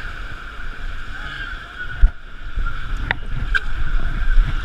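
River water rushing around a paddled boat with wind buffeting the microphone. A hard thump comes about two seconds in, and two sharp knocks follow about a second later.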